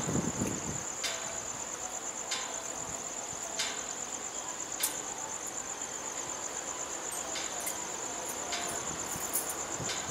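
Insects, crickets or katydids, chirring in a steady high-pitched drone. A low rumble dies away in the first second, and faint sharp clicks recur about every second and a quarter.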